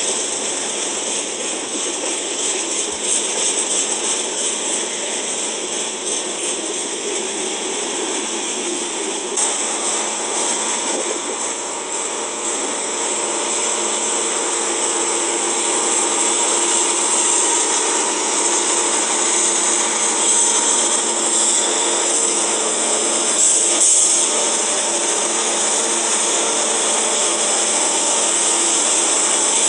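Freight train of tank cars rolling past close by, a steady noise of steel wheels on rail. From about halfway it grows louder as mid-train Norfolk Southern diesel locomotives approach and pass, their engines adding a steady drone.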